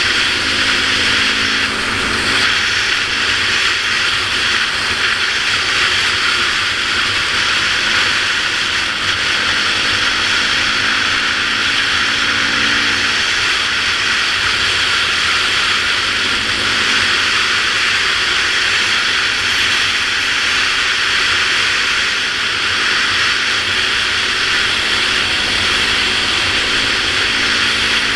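Steady wind rush over a helmet-mounted camera at road speed, with the note of a Yamaha YZ450F single-cylinder four-stroke dirt-bike engine running underneath and rising and falling slightly in pitch.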